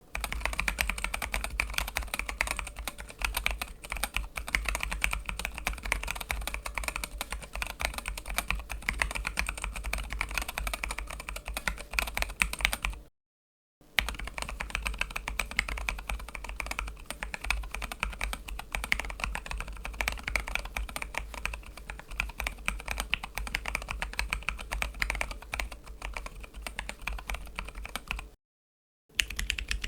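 Continuous typing on a mechanical keyboard with Zealio V2 tactile switches: quick, fairly soft key clacks in steady runs, broken by a brief silence about 13 seconds in and again near the end.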